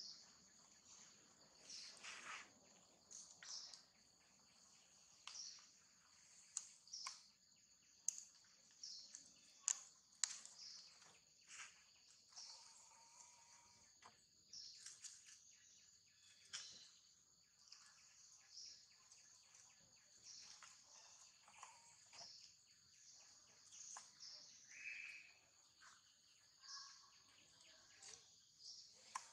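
Faint, steady insect chorus: a high, pulsing buzz. Scattered sharp clicks and rustles are the loudest sounds, and a few brief pitched squeaks are heard around the middle and near the end.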